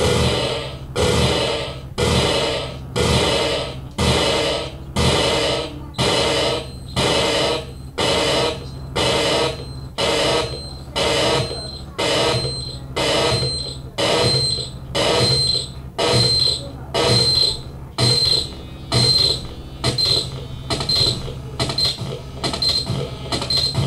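Live electronic sound-art noise from a laptop-and-electronics setup. Bursts of harsh noise repeat about once a second, coming a little faster near the end, over a steady low hum. From about ten seconds in, a high beep sounds with each burst.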